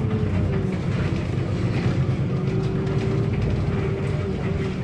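Cabin noise of a Solaris Urbino 8.9LE city bus under way: a steady low engine rumble with a thin, slightly wavering whine above it.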